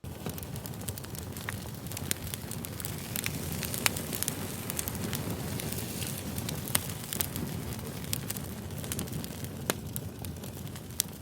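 Campfire burning: a steady low rush of flames with scattered sharp crackles and pops of burning wood, the loudest pop about four seconds in. The sound begins abruptly.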